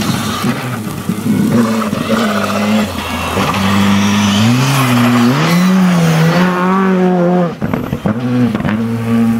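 Rally car engines, a Škoda rally car among them, revving hard through corners, the pitch rising and falling with throttle and gear changes. The sound drops away briefly about three-quarters of the way through, then picks up again.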